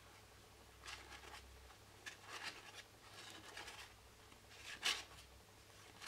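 Tarot cards sliding against one another as they are leafed through by hand: several soft, brief brushing swishes, the loudest near the end.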